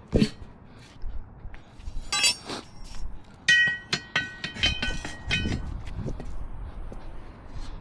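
Steel tire-changing tools clinking and ringing against a steel wheel as a tire is worked onto the rim. There are several sharp metal strikes, and a run of ringing clinks about halfway through.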